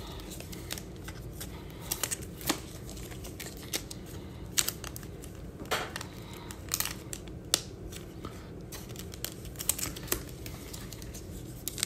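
Panini Mosaic baseball cards being handled and flipped through by hand: irregular light clicks, snaps and rustles of glossy card stock and plastic holders.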